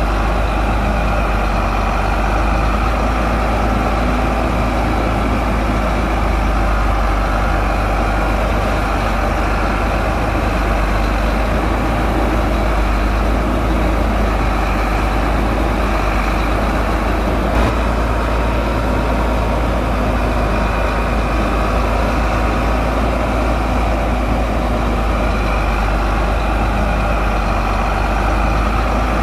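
Heavy diesel engine of earthmoving machinery running steadily at a constant speed, deep and even, with one short knock about two-thirds of the way in.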